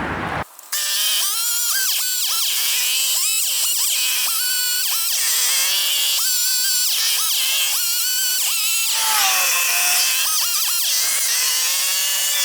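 Chainsaw cutting wood, its engine pitch rising, holding and dropping back again and again, about once a second, as the saw is throttled through the cuts. The sound starts suddenly about half a second in.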